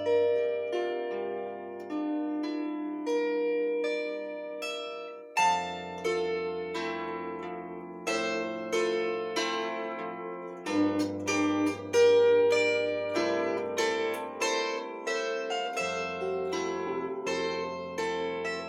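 Solo bandura playing: plucked notes that ring and fade over sustained bass notes, the melody growing busier after about five seconds.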